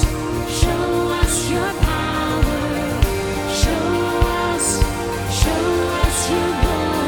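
Live worship band playing an instrumental passage of a contemporary Christian song: a steady drum beat with cymbal washes under sustained keys and guitar.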